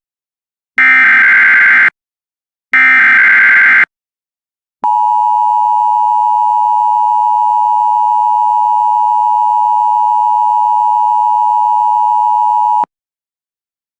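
Emergency Alert System SAME header: the last two of three one-second bursts of buzzy digital data tones, then the EAS two-tone attention signal held steady for about eight seconds and cut off sharply. Together they announce an incoming EAS tornado warning.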